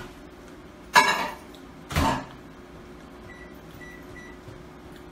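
Microwave oven being started: its door shuts with a sharp clack about a second in, a duller knock follows a second later, then three short keypad beeps as the time is set, about 20 seconds to melt butter.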